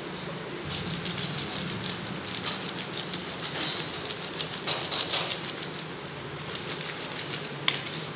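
Plastic cat food pouch crinkling and rustling in irregular bursts as a kitten bats and drags it across a tile floor, loudest in the middle seconds, with one sharp click near the end.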